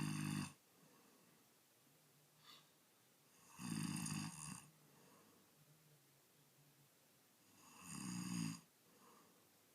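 A man snoring loudly, one snore about every four seconds, with quiet breathing between the snores.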